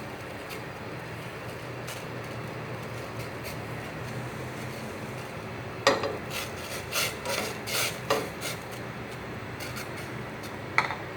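A metal spoon or ladle clinking and scraping against a pot of broth in several quick knocks, then one more knock near the end, over a steady kitchen hum and hiss from the pot heating on the stove.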